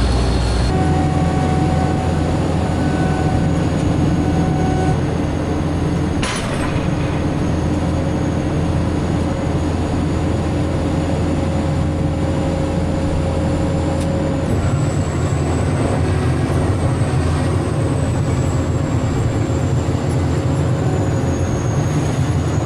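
A large engine-driven machine running steadily: a heavy low rumble with a thin high whine over it, shifting in tone twice. There is one sharp click about six seconds in.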